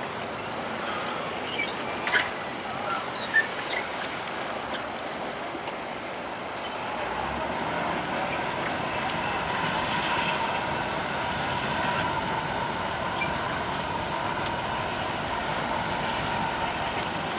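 Passenger ferry's engines running as it moves past, a steady drone with a hum that swells and grows louder about halfway through. A couple of sharp knocks sound in the first few seconds.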